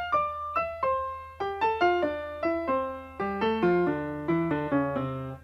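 Music: a quick run of piano-like keyboard notes, about four a second, stepping downward in pitch over a steady low hum.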